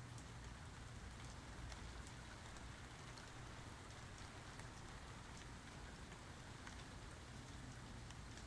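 Faint, steady rain with individual drops ticking on a surface, over a low, steady rumble.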